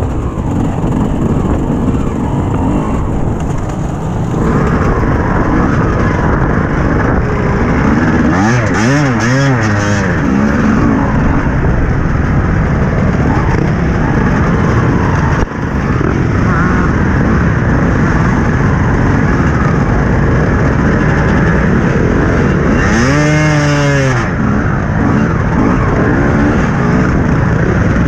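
Dirt bike engines running at low speed as a pack of riders moves along the track, heard close up from the rider's own TM 250. The engine revs up and back down twice, once about a third of the way in and again near the end.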